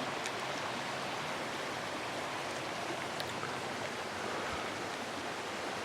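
Steady, even rush of a mountain stream flowing nearby.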